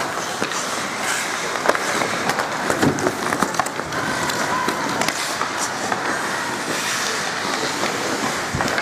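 Ice hockey skates scraping and carving the ice, with scattered sharp clacks of sticks and puck. Faint voices are heard beneath.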